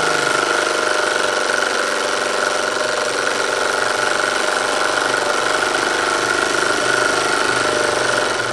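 Wilesco D222 electric toy steam engine running at speed on live steam: a rapid, even chuffing with a steady high tone over it. It runs smoothly.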